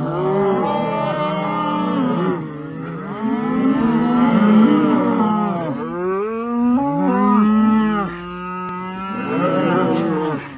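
Cattle mooing: long, drawn-out calls that bend in pitch and overlap, one after another.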